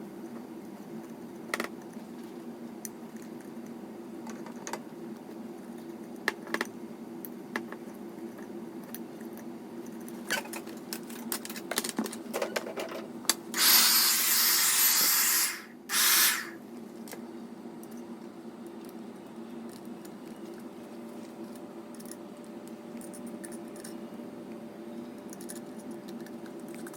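Handheld hair dryer switched on and blowing air for about two seconds, then a second short burst, among small plastic clicks and taps from handling the dryer and its parts over a steady low hum.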